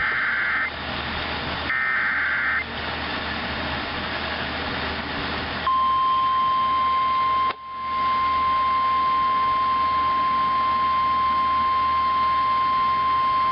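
NOAA Weather Radio SAME alert: the last two of three short two-tone digital header bursts, then a few seconds of radio hiss, then the steady 1050 Hz Weather Radio warning alarm tone from about six seconds in, with a brief dropout near eight seconds. The sequence marks the start of a new warning broadcast, here a flash flood warning.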